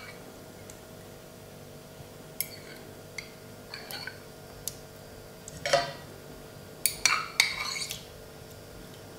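Cutlery clinking and tapping as marinated mushrooms are put into a non-stick frying pan: a few scattered light clinks, then a louder cluster of clinks about six to eight seconds in.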